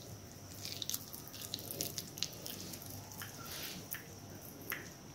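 Faint, irregular sticky squelches and small clicks of ghee-greased hands pinching off and rolling soft dough into balls.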